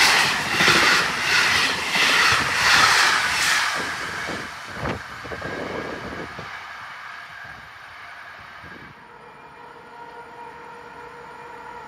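Passenger train of ČD coaches passing close at speed, its wheels clattering over the rail joints in a quick rhythmic beat. The clatter dies away over about five seconds as the train draws off. Near the end a faint steady hum sets in as an electric locomotive approaches in the distance.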